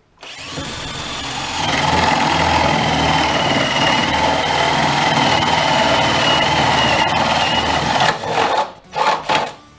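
Parkside 20 V cordless hammer drill/driver boring through a wooden plank with a 25 mm spade bit: the motor runs steadily under load, getting louder over the first two seconds as the bit cuts in, and stops about eight seconds in. Two short bursts of the drill follow near the end.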